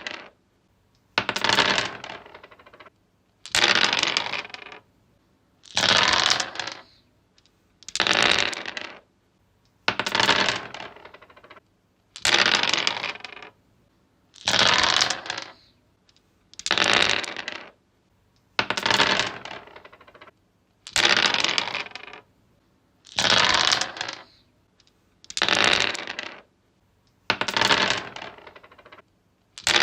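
Dice rolled over and over on a wooden surface: each throw is a clattering rattle of about a second that quickly dies away, repeating about every two seconds, some thirteen throws in all.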